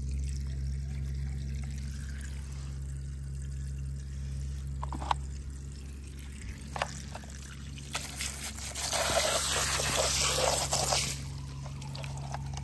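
Water trickling, with a few small clicks, then about eight seconds in a louder rush of pouring water that lasts about three seconds and stops.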